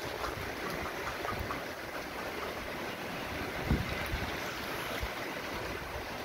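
Steady hiss of rain falling, with wind gusting on the microphone and a stronger buffet about three and a half seconds in.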